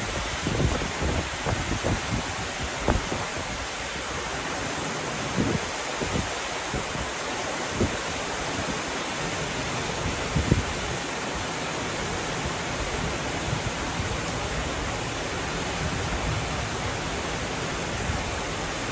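Heavy rain falling steadily, with gusts of wind buffeting the microphone now and then, mostly in the first few seconds.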